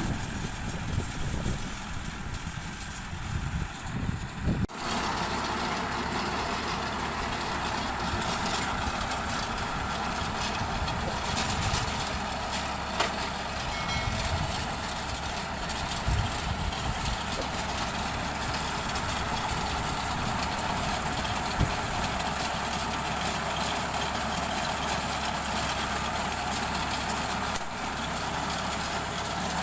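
Tractor engine running steadily while it drives a round straw baler. The first few seconds are an uneven, gusty rumble that gives way suddenly to the steady engine drone.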